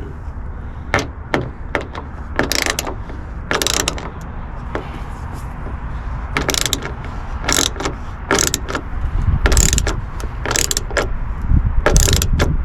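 Hand ratchet clicking in short runs of strokes, tightening the mounting bolts of a car's rear wing.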